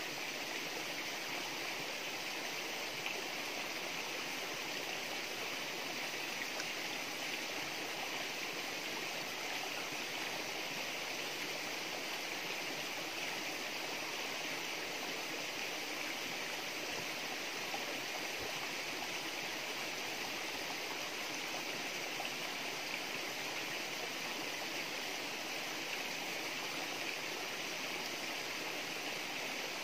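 Steady, even rush of water: a constant hiss that neither breaks nor changes.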